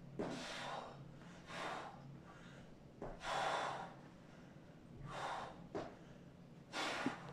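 A man breathing hard from exertion during lying leg raises: about five forceful breaths, roughly one every second and a half, in time with the leg lifts.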